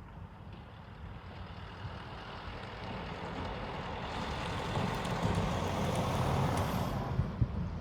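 A road vehicle passing by: steady tyre and engine noise that builds gradually, peaks near the end, then falls away quickly.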